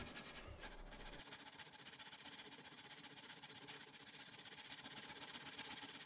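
Faint, steady rasping of a Japanese pull saw drawn by hand through a wooden post, cutting a castle joint.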